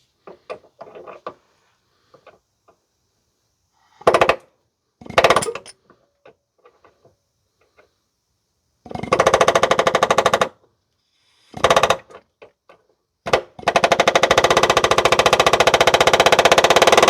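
Pneumatic air hammer firing against a rusted exhaust hanger on a muffler. Two short bursts come first, then a longer run and another short burst, and from about three quarters of the way through it runs without a break in a fast, even rattle of blows.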